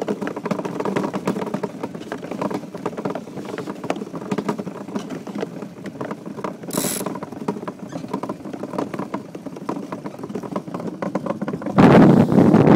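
DN iceboat's runners chattering over the ice at speed, a fast, uneven rattle carried through the hull, with one brief sharp hiss about seven seconds in. Near the end, wind suddenly buffets the microphone loudly.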